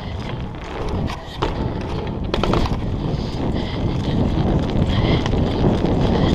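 Wind buffeting a chest-mounted GoPro's microphone while a BMX bike rolls over paving stones, a steady rumble that grows louder. A few sharp rattling clicks come about a second in, with a quick cluster of them about two and a half seconds in.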